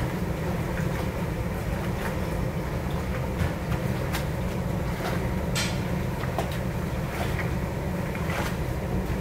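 Steady low rumbling noise of a commercial kitchen's cooking equipment under a pan of stir-frying pork, with scattered light clicks and a brief rustle of a handled paper sheet about five and a half seconds in.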